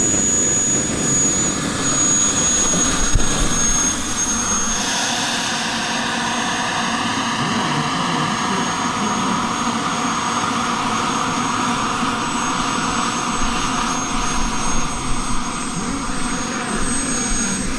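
Radio-controlled model jet's miniature turbine engine running with a steady, loud high-pitched whine over a rushing roar.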